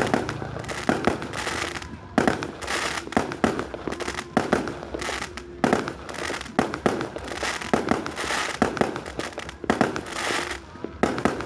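Fireworks going off in a dense, irregular series of sharp bangs, several a second, with crackling between them.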